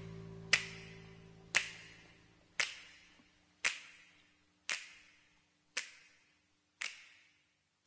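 Finger snaps, eight of them about a second apart, each with a short echo, growing fainter, as the last held notes of music fade away underneath.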